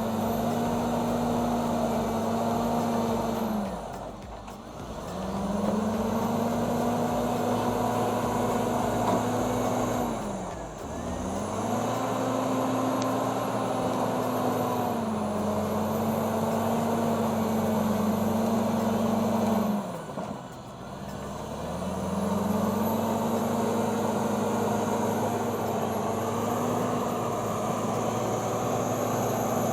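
Caterpillar D7 bulldozer's diesel engine running hard, its revs dropping sharply three times, about four, ten and twenty seconds in, and climbing back up each time.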